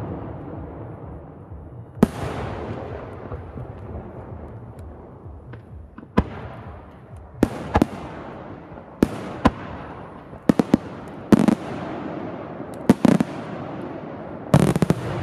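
Aerial firework shells bursting, each sharp bang followed by a long rolling echo. The bangs come a few seconds apart at first, then faster and in pairs in the second half, ending in a quick cluster of several bangs.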